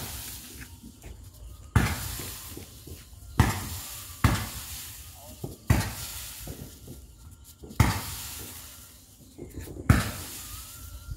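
A firework cake firing shot after shot: six sharp bangs about every one and a half to two seconds, each trailing off into crackling, hissing sparks.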